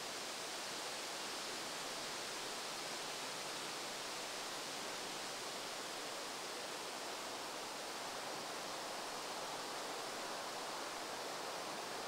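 Steady, even hiss of quiet outdoor ambience, with no pecking, drumming or calls standing out.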